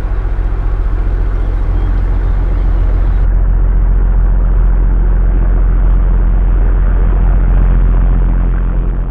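Boat diesel engine running steadily: a low, rhythmic throb that grows a little louder through the middle and eases off near the end.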